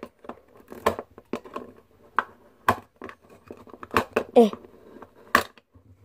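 Small plastic Calico Critters toy washing machine handled by hand: a scatter of light plastic clicks and taps as its round door is worked and pried open, with a few sharper clicks.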